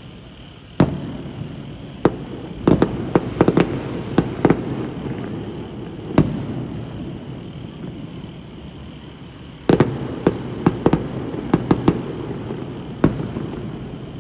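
Aerial fireworks bursting: a loud bang about a second in, then a quick volley of cracks and pops, another bang, and a second volley near the end, over a continuous rumble of distant explosions.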